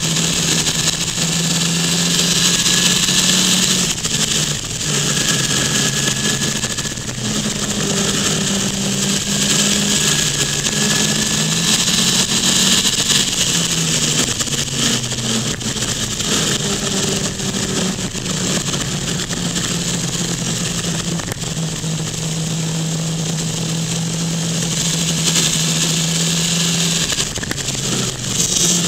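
Motorcycle engine running hard through a series of bends, its note rising and falling as the rider rolls the throttle on and off, over a heavy rush of wind noise.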